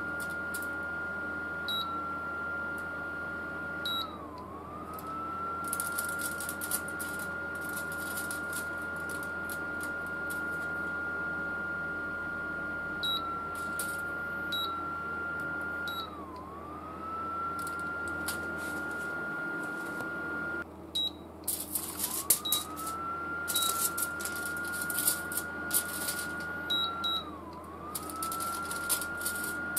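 Induction cooker whining at a steady high pitch over the hum of its cooling fan, the whine dipping and sliding back up every several seconds and cutting out once about two-thirds of the way through. Aluminium foil lying on the cooker's glass top crackles and rattles in bursts, most thickly near the end.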